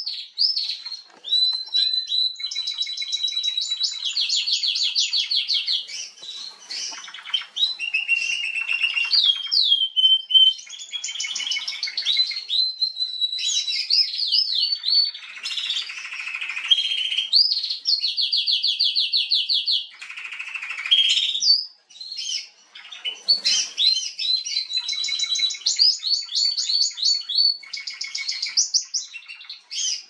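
Female wild-type Atlantic canary singing a long, varied song of fast trills and whistled notes, with brief pauses about ten and twenty-two seconds in.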